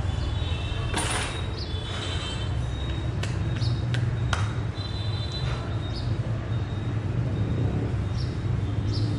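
Steady low background rumble, with a few sharp clicks and some short high chirps or squeaks over it.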